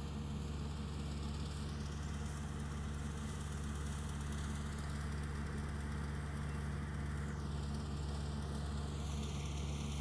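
Small rice harvester's engine running steadily in the paddy, a constant low mechanical hum with no change in speed.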